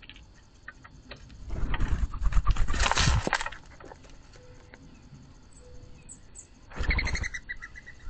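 White-winged doves' wings flapping at a box feeder: a long run of loud wingbeats about one and a half seconds in, and a shorter one near the end. A few short high chirps follow the second one.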